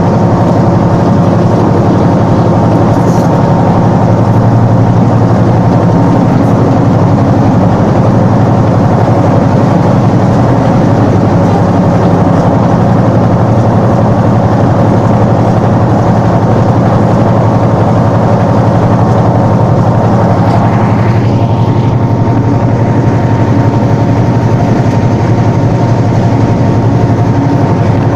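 EMD 645 V12 diesel engine of a Class M6 (EMD G22M) diesel-electric locomotive running steadily and loudly while hauling a train, heard up close beside the engine-compartment louvres.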